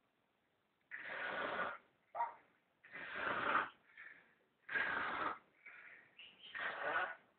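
Snoring in a steady rhythm: four louder snores about two seconds apart, each followed by a shorter, softer breath.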